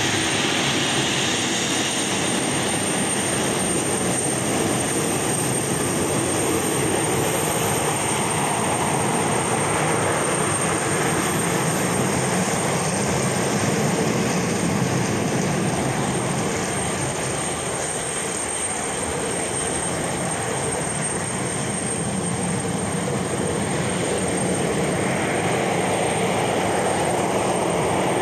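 Embraer 190 airliner's twin GE CF34 turbofan engines running steadily as the jet rolls along the runway after landing: a continuous engine noise that eases slightly about two-thirds of the way through.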